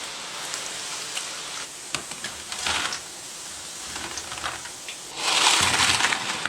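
Pork-and-tofu meatballs sizzling in hot oil with dried chilies and Sichuan peppercorns, with occasional sharp clicks from stirring. The sizzle swells louder for about a second near the end.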